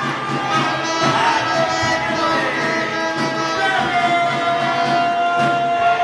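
Music with a melody of long held notes that slide up and down in pitch.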